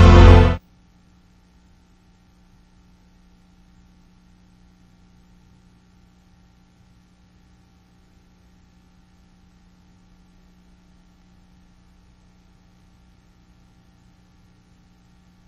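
Music cuts off abruptly about half a second in, leaving a faint, steady electrical hum of a few fixed tones.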